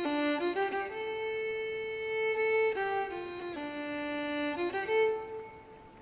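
Background music: a violin playing a slow melody of long held notes with a few quick ones between them, dying away near the end.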